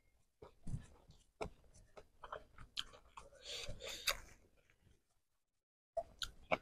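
A person chewing food close to the microphone: quick, irregular wet mouth clicks and smacks. The sound breaks off into dead silence for about a second near the end.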